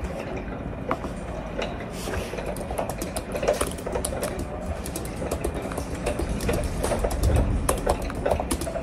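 Typing on a laptop keyboard: quick, irregular key clicks, with a low rumble swelling near the end.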